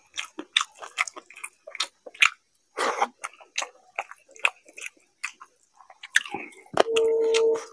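Close-up eating sounds: a hand squishing and mixing rice with fish curry on a plate, with many small wet clicks and mouth-chewing smacks. Near the end a steady hummed tone lasts under a second.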